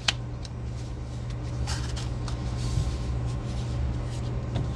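Pokémon trading cards handled by hand on a playmat: a sharp click right at the start, then light clicks and short rustles as the cards slide against each other and are gathered into a stack. A steady low hum runs underneath.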